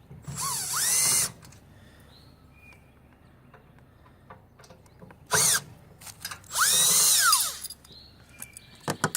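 Power drill-driver spinning screws out of a metal tool chest's top section in three runs, its motor whine rising and then falling in pitch each time; the middle run is brief. Small clicks and knocks of handling come between the runs.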